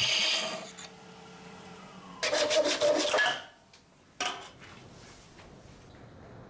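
Abrasive paper rubbing against a wood-and-epoxy-resin vase spinning on a lathe during fine sanding and polishing. It comes as one longer rubbing pass about two seconds in and a brief one about four seconds in, with quieter stretches between.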